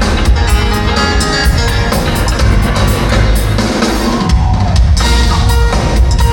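Band music with a drum kit keeping a steady beat over bass and held instrument notes.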